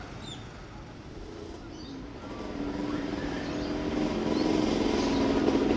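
Motorcycle engines at a railway level crossing running and pulling away, growing louder from about halfway in. A few short bird chirps come in the first two seconds.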